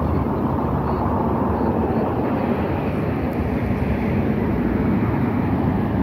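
Steady city street noise: the low rumble of road traffic, with a fluttering low end.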